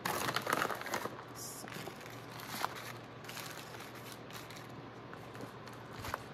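Brown packing paper rustling and crinkling under hands, busiest in about the first second, then softer scattered rustles with a few small ticks.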